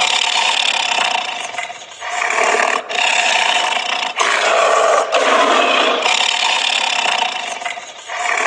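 Tiger roaring and snarling in several long, harsh roars with brief breaks between them, cutting off suddenly near the end.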